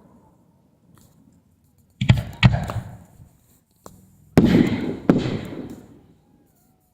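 Fireworks going off: four sharp bangs in two pairs, each trailing off in a fading rumble.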